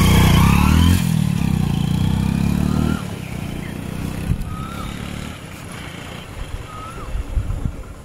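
Hero HF Deluxe's single-cylinder four-stroke engine, freshly rebuilt, pulling away and accelerating. Its pitch climbs, breaks about a second in, climbs again, then drops sharply away about three seconds in as the motorcycle rides off. A few faint chirps follow.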